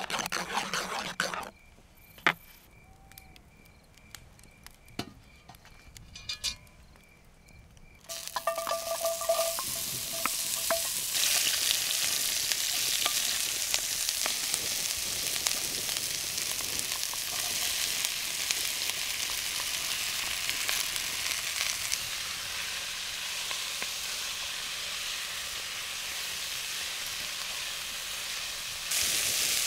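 Food frying in cast-iron cookware over a wood fire: a steady sizzle starts abruptly about eight seconds in and keeps on. Before that there is only quieter spoon stirring and a few light clicks.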